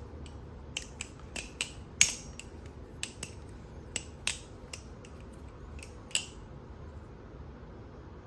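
A Glider clone balisong (butterfly knife) being flipped: the handles clack against the pins in quick, irregular clicks, the loudest about two seconds in, stopping a little after six seconds.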